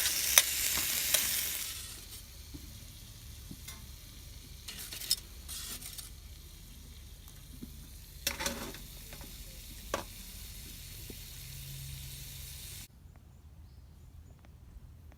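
Meat sizzling in an iron skillet, loud for the first two seconds, then a much quieter sizzle with a few sharp taps and clicks. The sound cuts off suddenly near the end.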